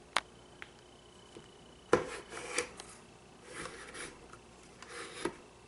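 Handling noise from a ring light on its tripod stand: a sharp click, then three short bouts of scraping and rubbing as its parts are moved, the last ending in another click.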